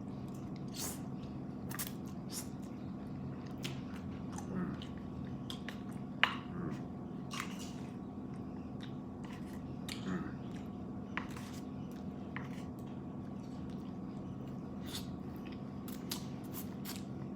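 Close-miked chewing and wet mouth smacks of a person eating, in short irregular clicks, with one sharper click about six seconds in. A steady electric fan hum runs underneath.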